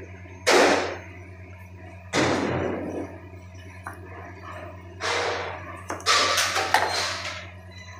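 Kitchen knife cutting through a fresh cucumber and knocking on a plastic cutting board, several separate cuts with a crisp crunch each time, over a steady low hum.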